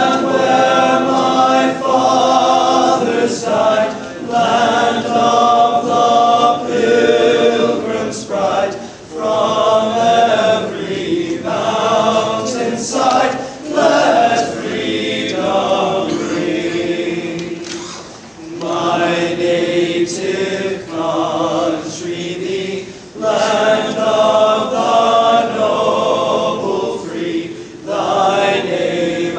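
A choir of teenage boys singing a song together, phrase after phrase with short breaks between.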